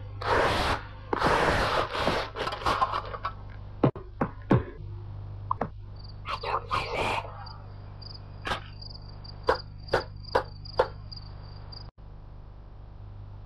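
Cartoon sound effects: a few scratchy brushing strokes of a broom at the start, then a steady high chirr of crickets for a night scene, cut through by several sharp clicks, over a low mains hum from an old tape transfer.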